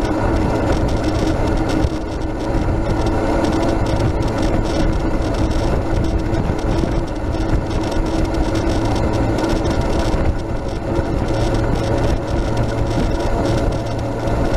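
Steady rolling noise from a Max II 6x6 amphibious ATV being flat-towed on pavement: its tires on the road and its body and tow bar rattling, over a constant low hum.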